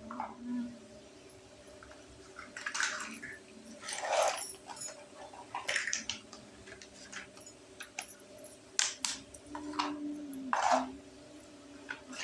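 Small plastic toy kitchen pieces and packaging being handled: scattered clicks, taps and short rustles, about half a dozen, over a faint steady hum.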